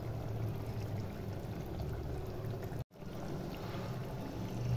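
Chicken curry gravy simmering in a pot, bubbling steadily over a low hum. The sound cuts out for an instant about three seconds in.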